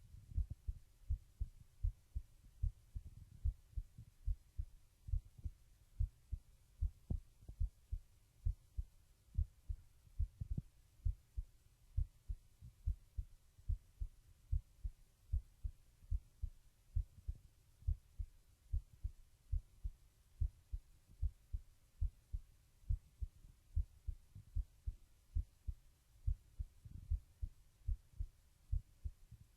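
A teenage boy's heartbeat picked up by a microphone: a steady, regular run of low, dull thumps.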